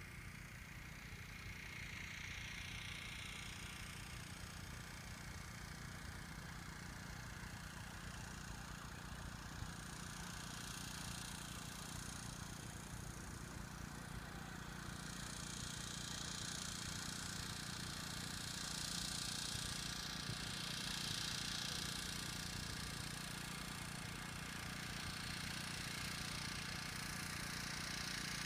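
Wind buffeting the microphone outdoors: an uneven low rumble, with a steady higher hiss that grows louder about halfway through.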